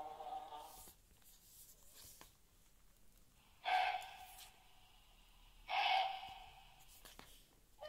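Two short, harsh deer barks from a children's sound book's button, played through its small speaker, about two seconds apart. A recorded bee buzz from the same book cuts off about a second in, and light page-turning rustles follow.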